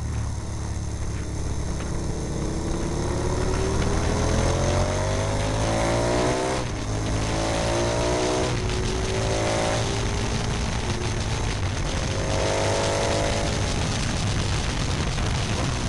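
KTM 990 Super Duke's V-twin engine accelerating hard: a long pull rising in pitch that drops sharply about six and a half seconds in as the bike shifts up, then several shorter rising pulls. Heavy wind rush on the microphone throughout.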